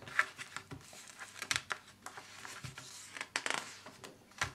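Glossy magazine pages rustling as they are turned by hand, with several quick sharp paper flicks, the strongest near the end.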